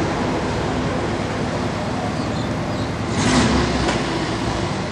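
Street ambience with steady traffic noise, and a louder rush of a passing vehicle a little over three seconds in.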